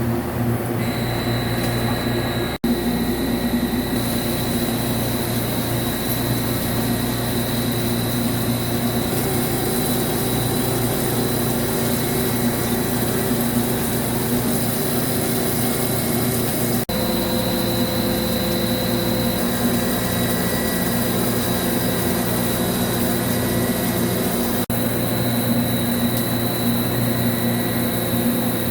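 CNC vertical lathe running while turning an AL6061 aluminium part: a steady machine drone with a high whine over it. The sound drops out for an instant three times.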